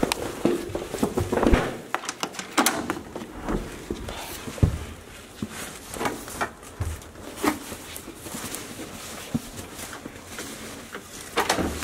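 Irregular taps, knocks and rustles of a handheld camera being handled while moving, with a few low thumps like footsteps.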